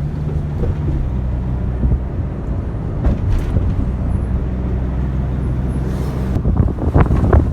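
Car engine running steadily with road noise while driving, heard from inside the vehicle. Near the end a run of sharp thumps and gusts hits the microphone.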